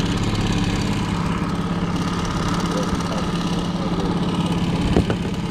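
Outboard motor running steadily at low trolling speed, an even hum, with a single knock on the boat about five seconds in.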